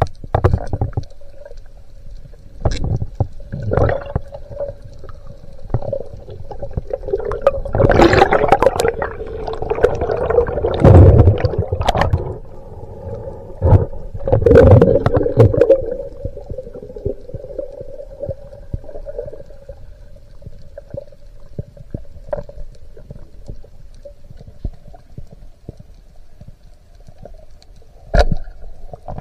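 Muffled underwater sound picked up through a camera's waterproof housing while diving: a steady hum, scattered knocks, and two louder stretches of gurgling, rushing water, about eight to twelve seconds in and again around fifteen seconds. A sharp knock comes near the end.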